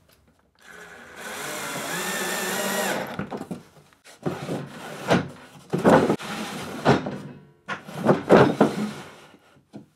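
Cordless drill-driver running for about two seconds with a steady whine, driving a wood screw into plywood as a drawer stop. After that comes a run of wooden knocks and scrapes as the plywood drawer is slid in and out.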